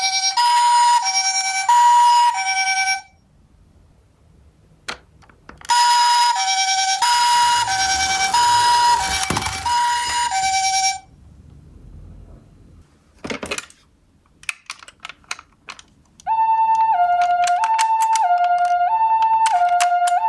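Toy ambulance minicars' electronic hi-lo "pee-po" siren, alternating between a high and a low tone about once a second. It cuts off about 3 seconds in and comes back around 6 seconds with a low rumble beneath it, then stops near 11 seconds. A few clicks and knocks follow, and a second, cleaner hi-lo siren starts about 16 seconds in.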